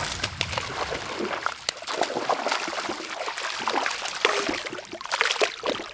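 Hooked largemouth bass splashing and thrashing at the lake surface as it is reeled toward the boat, a run of irregular splashes.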